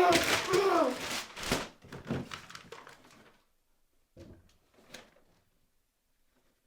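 A person's loud vocal cry that falls in pitch, followed by a couple of seconds of ragged, gasping breaths that fade out, then two faint knocks.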